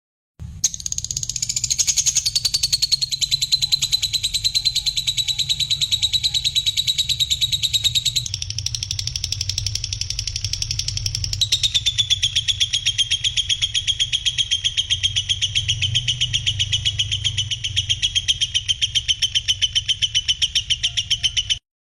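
Songbird master recording: a loud, rapid, continuous trill, high-pitched and unbroken, that switches abruptly to a different pattern twice (about 8 and 11 seconds in), over a steady low hum. It starts and cuts off suddenly.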